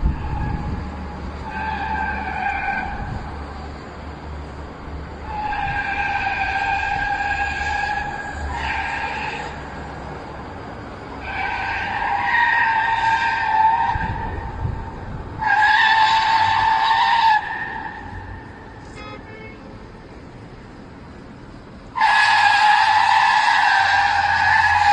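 Car tyres squealing in a series of long skids, several seconds each, over a low engine rumble. The loudest squeal starts near the end.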